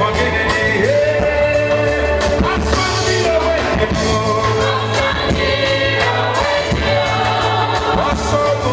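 Live band music with a man singing lead into a microphone over keyboards and electric guitar, on a steady bass line.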